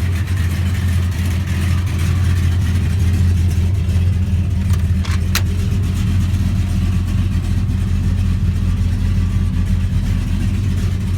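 1955 Chevrolet engine idling steadily, with a couple of short clicks about five seconds in.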